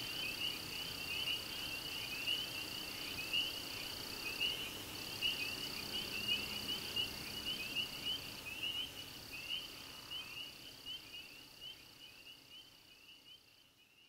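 Outdoor chorus of frogs and insects: fast, continuous chirping, with a steady high trill that stops and starts every four seconds or so. The chorus fades out near the end.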